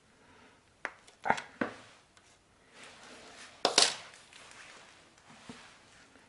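Pliers working electrical wires at a switch box: a few sharp clicks and snaps, the loudest a little past halfway, with rustling of wire and hands between them.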